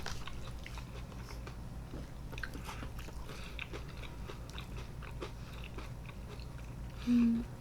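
Close-miked chewing and biting on food, with small crunchy crackles scattered throughout. Near the end a short closed-mouth hum, the loudest sound here.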